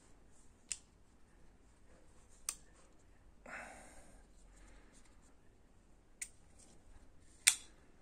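Kershaw Shuffle folding pocket knife being handled, closed and flicked open again: four sharp metallic clicks as the blade snaps into place, the loudest near the end, with a brief rustle of the handle in the hand about halfway through.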